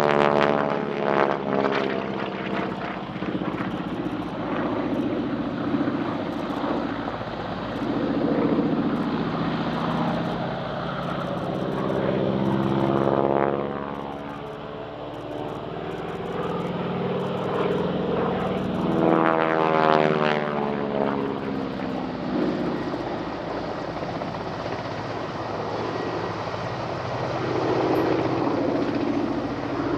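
North American SNJ-3 Texan's Pratt & Whitney R-1340 Wasp radial engine and propeller running at display power through aerobatics. The drone swells and fades and shifts in pitch as the aircraft wheels past and climbs, dipping briefly about halfway.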